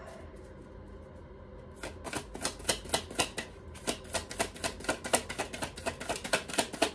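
A deck of tarot cards being shuffled hand over hand: after about two seconds of quiet, a quick run of crisp card flicks and slaps, several a second.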